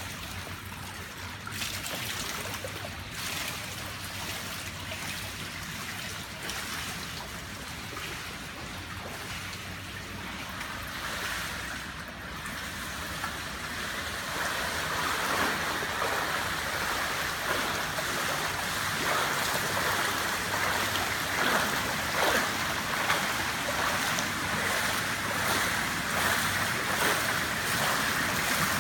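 Water splashing and churning from a swimmer's dolphin kick in short fins in an indoor pool. It grows louder about halfway through as the swimmer nears.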